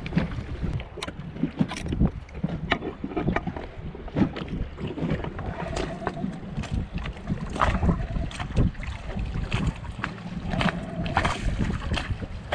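Dinghy outboard motor being pulled over on its recoil starter again and again, turning but not firing: the engine is flooded from over-priming. Short knocks through it, with wind on the microphone.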